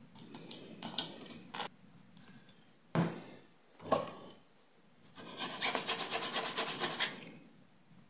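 A hobby blade scrapes the solder mask of a circuit board at a damaged pad beside a USB-C connector, exposing copper. A few scratchy strokes come first, then two short clicks, then about two seconds of fast, even scraping strokes.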